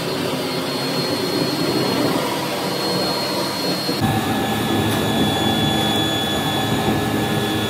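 Steady roar of the forced-air blast feeding a coke-fired pit furnace, with a steady fan whine over it that shifts in pitch about halfway through.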